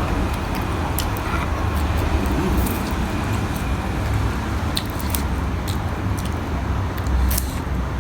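Chewing, with scattered short crisp clicks over a steady low background rumble.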